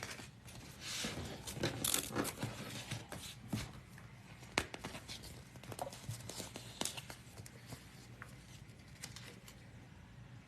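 Thermal label paper rustling and scraping as it is handled and turned over at a label printer, with scattered clicks; one sharp click comes about four and a half seconds in.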